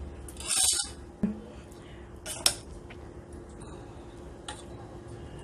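A spoon scraping thick custard from a bowl and tapping against a glass as the custard goes into a dessert glass: a brief scrape, a soft knock, then a sharp clink and a faint tick.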